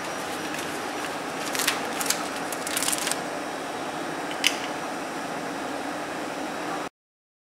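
A few light clicks and rattles of metal fittings being handled on a tray sealer's film-roll bar and latch, then one sharp click a little after the middle, over a steady hum. The sound cuts off suddenly near the end.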